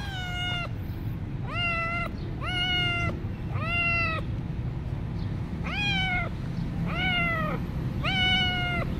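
A kitten meowing again and again: seven short, high meows about half a second each, fairly evenly spaced. A steady low background rumble runs underneath.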